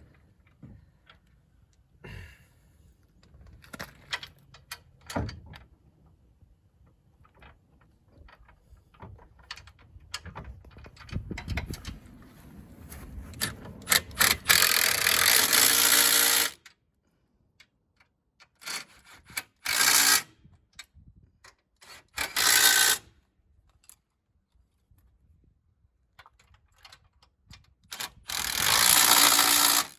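Cordless power tool running in four short bursts, about one to two seconds each, driving nylon lock nuts onto the winch mounting bolts. Before the bursts come scattered clicks and knocks of metal parts and tools being handled.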